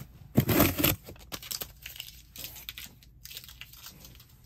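Cardboard shipping box being handled and opened: a loud rip lasting about half a second near the start, then scattered rustles and light knocks.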